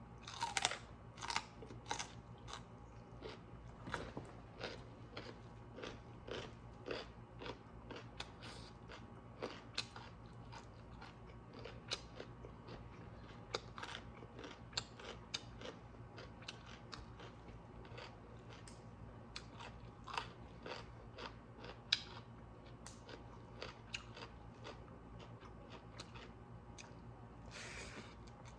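A person eating close to the microphone: repeated chewing and crunching bites of cooked greens and chicken, more frequent in the first half and sparser later. A longer noisy sound comes just after the start and another near the end.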